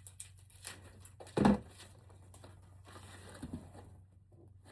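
Crinkling and rustling of plastic-wrapped ribbon rolls and packaging being handled, with a soft thump about a second and a half in, as of a roll being set down.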